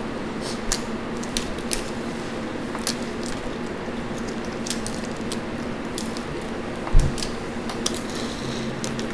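Boiled crawfish and crab shells being cracked and peeled by hand, a scattering of sharp snaps and crackles over the steady hum of a box fan. A dull thump about seven seconds in is the loudest sound.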